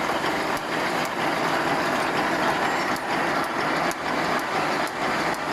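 Automatic welded wire mesh machine running: a steady mechanical noise with repeated sharp clicks as it cycles.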